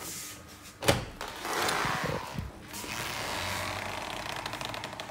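An interior door being opened: a sharp click of the handle and latch about a second in, then rustling and a steady hiss as the door swings open.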